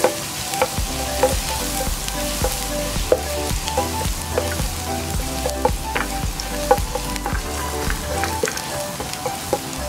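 Minced garlic sizzling in hot oil in a nonstick pan, with short clicks and scrapes as a spatula stirs it. Background music with a steady bass plays underneath.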